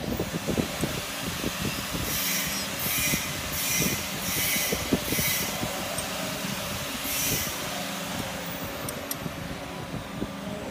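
Irregular metal knocking and scraping as a gloved hand works a shear die and its side lock screw tight in the machine, with several short high squeals in the first half over a steady hum.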